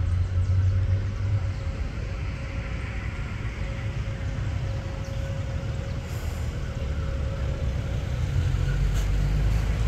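Airbus A320neo's jet engines running as the airliner rolls along the runway after landing: a steady whine over a heavy low rumble, the whine fading out near the end.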